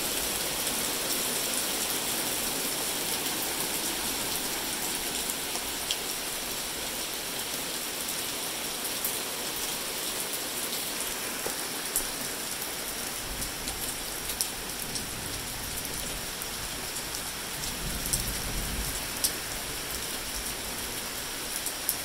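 Steady heavy rain falling on a lawn and trees, with scattered sharp ticks of drops striking close by.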